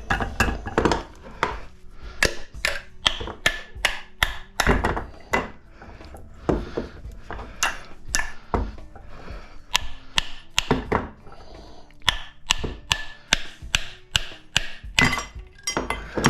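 Repeated hammer blows on a PTAC fan motor, beating the rotor shaft out of its copper stator. The strikes are sharp and irregular, about two a second, with a few brief pauses.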